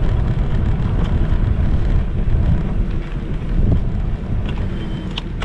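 Wind buffeting the microphone of a GoPro mounted on a moving electric scooter: a loud, uneven low rumble.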